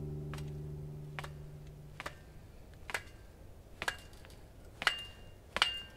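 Sharp taps on a 2-inch rigid steel conduit post of a freshly concreted strut-channel rack as it is checked and nudged level, about one a second and growing louder, the last few ringing briefly with a metallic tone. Acoustic guitar music fades out over the first two seconds.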